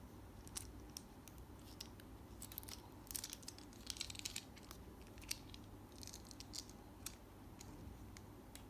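Small objects being handled by hand: scattered light clicks and taps, with brief scratchy, crinkly rustles about three to four seconds in and again around six seconds.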